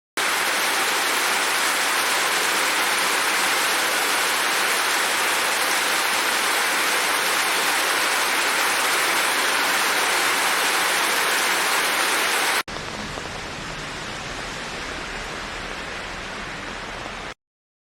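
Steady rain falling, an even hiss of water. About two-thirds of the way through it cuts suddenly to a quieter rain recording with more low rumble, which then stops abruptly near the end.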